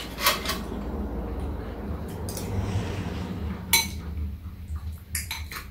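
Metal spoons clinking against ceramic soup bowls while eating. There are a couple of clinks near the start, a louder one past halfway and several quick ones near the end, over a steady low hum.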